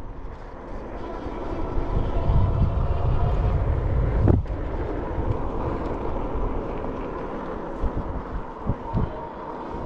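Wind rush and road noise from riding a fat-tire electric bike: a steady low rumble with a single sharp knock about four seconds in.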